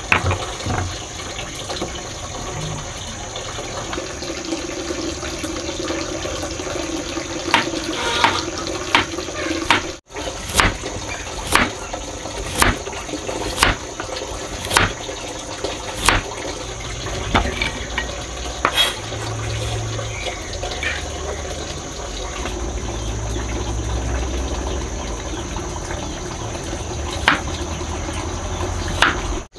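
A cleaver slicing carrot and potato on a round wooden chopping board, with sharp chops about once a second, over a steady rushing background hiss.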